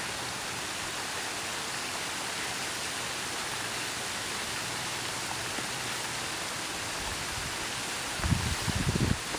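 Steady, even rush of water, as from the small rock waterfall feeding the pond. Low rumbling bursts break in near the end.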